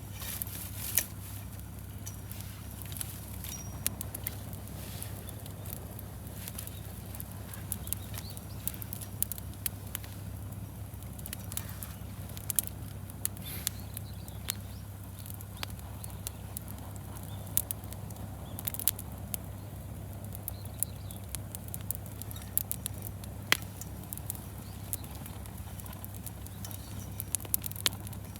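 Wood campfire crackling, with irregular sharp pops and snaps over a steady low hum.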